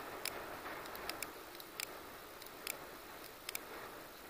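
About a dozen sharp, short clicks at uneven intervals, made while lighting the fuses of firecrackers taped to a small toy airplane, over faint wind noise.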